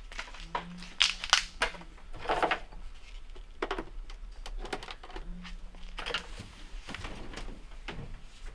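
Scattered clicks, knocks and rustles of hands handling equipment and wiring in a pickup truck's bed, the sharpest clicks a little over a second in. A short low hum comes and goes twice.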